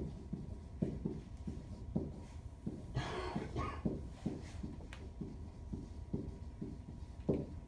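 Marker writing on a whiteboard: a run of soft knocks, about two or three a second, as the marker tip strikes and lifts off the board. A brief, louder noisy sound comes about three seconds in.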